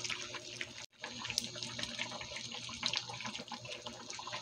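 Pot of mung bean soup with rice noodles bubbling on the boil, a watery gurgling with many small pops. It cuts out for an instant about a second in.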